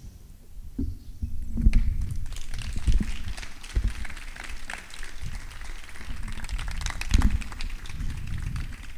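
A small audience applauding: a dense patter of hand claps that starts about a second in, with some low thuds underneath.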